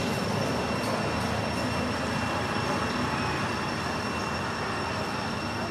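Steady outdoor drone: a constant high-pitched insect buzz, typical of cicadas, over an even rushing noise.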